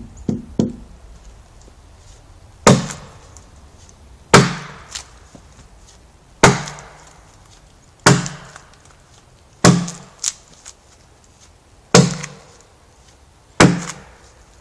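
Hand adze hewing a red pine log: seven heavy chopping strikes into the wood, about one every one and a half to two seconds, each a sharp thunk with a short ringing tail. Two lighter knocks come at the start, and a few smaller knocks follow some of the blows.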